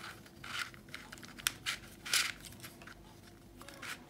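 Plastic twisty-puzzle cube, a deformed 3x3 cube-in-cube, being turned by hand: a few short scratchy turns of the plastic layers and one sharp click.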